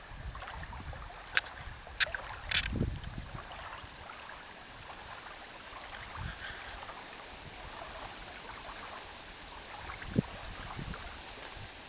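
Outdoor wind blowing on the microphone in uneven low gusts over a steady hiss of small waves lapping on the lake. There are a few sharp clicks about one and a half to two and a half seconds in, and a short thump near the end.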